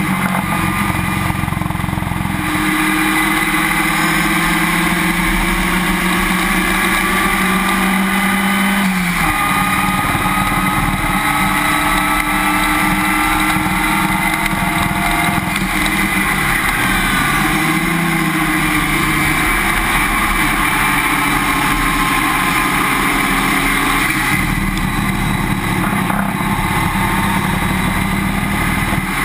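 Race car running at track speed, heard from a camera mounted under the car at the left rear suspension: a steady engine drone mixed with road and wind noise. The engine note climbs steadily, drops sharply about nine seconds in, and dips briefly again around seventeen to eighteen seconds.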